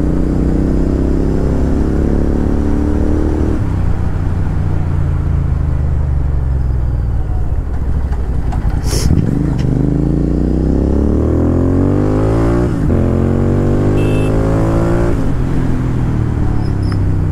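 Royal Enfield Continental GT 650's parallel-twin engine under way, its revs climbing and then dropping sharply several times as it shifts up through the gears. There is a short sharp click about nine seconds in.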